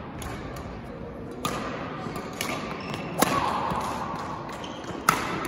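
Badminton rally: rackets striking the shuttlecock, three sharp hits a little under two seconds apart with lighter taps between, each echoing in a large gym hall.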